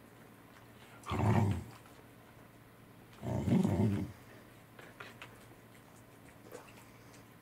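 Welsh corgi vocalising twice, short low sounds about one and three and a half seconds in, the second a little longer: a dog demanding a share of the fish.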